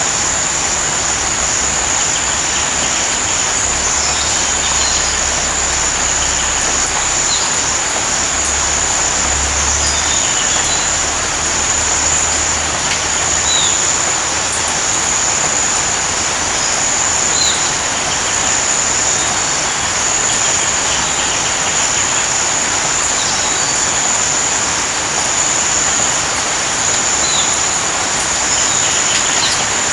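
Steady rainfall with a constant high-pitched insect drone and scattered short bird chirps. A low rumble runs under it for the first dozen seconds or so, then fades.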